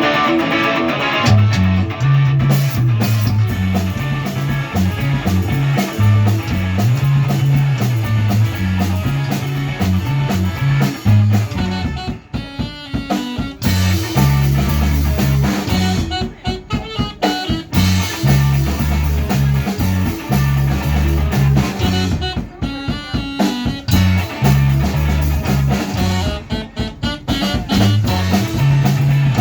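Rock band playing a song on guitar, bass and drum kit, the bass stepping through a riff, with a few short breaks where the bass drops out.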